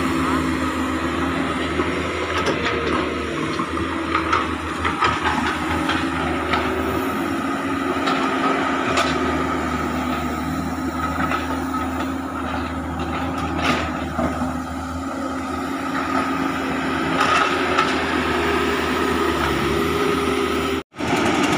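Hydraulic excavators' diesel engines running under working load, their pitch wavering as the hydraulics work, with a few sharp knocks.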